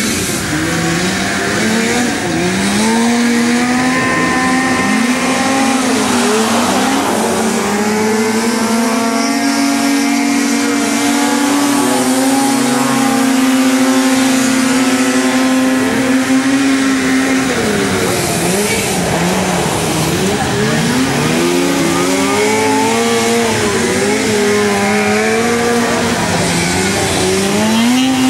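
Engines of several six-wheeled racing ATVs running hard on a dirt track, their pitches overlapping and continually rising and falling as they rev up and back off.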